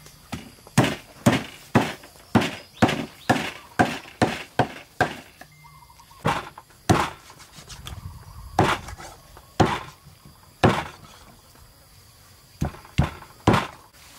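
A cleaver chopping through a raw rack of goat ribs on a round wooden chopping block: a quick run of sharp chops, about two a second, for the first five seconds, then slower, spaced strikes with short pauses between them.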